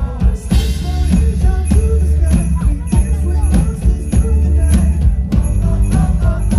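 Live band music over loudspeakers, with a strong bass line and a regular drum beat. A bright shimmer of jingle bells or cymbals runs on top, with a splash of it about half a second in.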